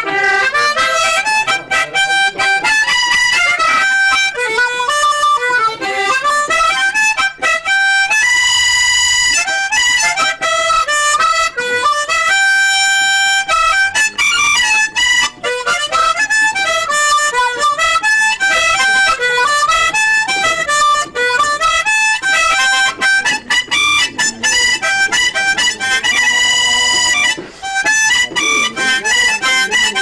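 Harmonica played solo, cupped in both hands: a quick-moving melody of short notes, with a few long held notes along the way.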